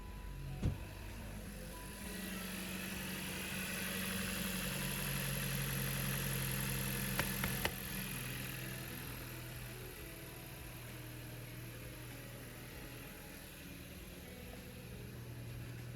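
A VW 1.5 TSI four-cylinder turbo petrol engine (DXDB) is running at idle, a test run after new spark plugs were fitted. It is a little louder in the first half, with a click just before a second in and a few sharp clicks around the middle.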